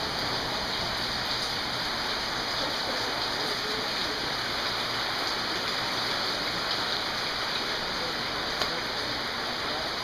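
Heavy rain falling steadily onto standing water, plants and ground, a constant even hiss of pouring rain.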